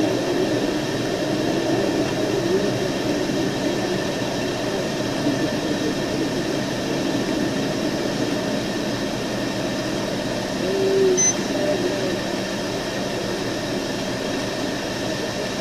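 Steady running noise of a police patrol vehicle, an even rumble and hiss with faint muffled voices underneath.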